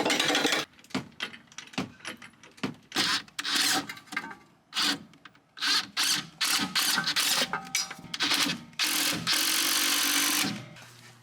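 Workshop tool noises while working on a car's suspension: a run of short, irregular clanks and rattles, then a steady rasping noise lasting about a second and a half near the end.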